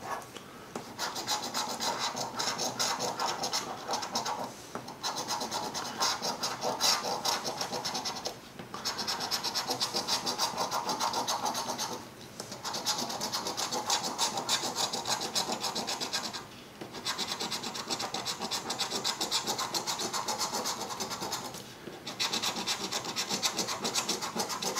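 A coin scraping the coating off a lottery scratch-off ticket: fast back-and-forth scratching in runs of a few seconds, with short pauses between them.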